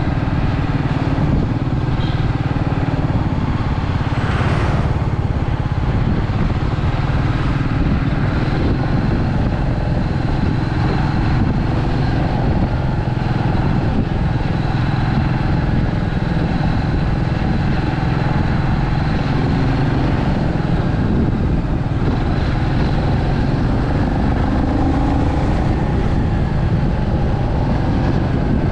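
Royal Enfield Meteor 350's 349 cc single-cylinder engine and exhaust running steadily at cruising speed, heard from on the bike with road noise. A brief whoosh rises and falls about four seconds in.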